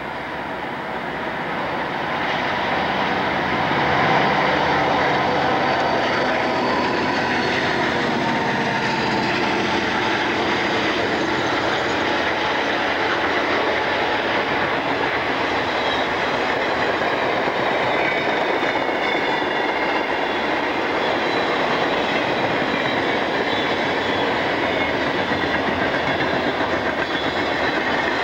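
Canadian National diesel freight locomotives pass close by, growing louder over the first few seconds. A long string of freight cars then rolls past with a steady rumble and clatter of wheels on the rails.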